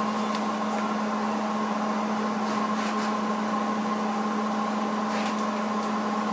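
Steady electrical hum of a MIG welder switched on and idling, ready to weld, with a few faint clicks and taps as the torch is set against the clamped panel.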